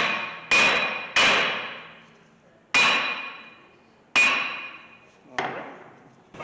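A hammer striking a brake rotor that is stuck on the hub of a 2013 Honda Civic, to knock it loose. There are about six blows at uneven intervals, each followed by a metallic ring that fades over a second or so, and the last blow is lighter.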